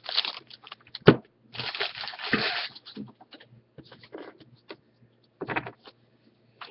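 Baseball trading cards being handled and flipped through: short, irregular scuffs of card stock sliding against card. The loudest sound is a single sharp click about a second in.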